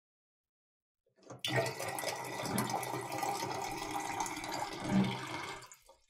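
Water dispenser running, water pouring into a container, starting suddenly a little over a second in and tailing off just before the end.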